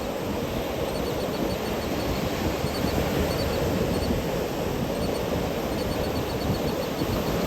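Ocean surf washing up on a sandy beach: a steady rushing noise that swells and eases a little, with faint short high ticks in runs.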